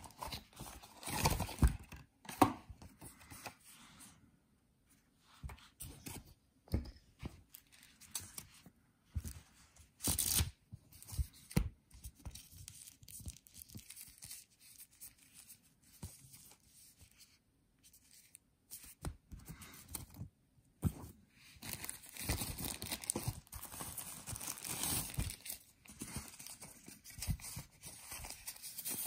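Hands unpacking camera accessories: plastic wrap and paper handled and crinkling in irregular bursts, with a few short knocks, busier in the second half.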